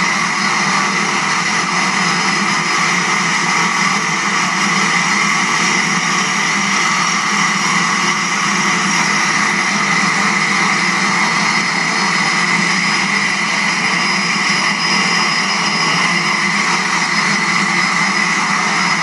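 De Havilland Twin Otter's turboprop engines running steadily on the ground: a steady high whine over a broad rush, heard through a TV speaker.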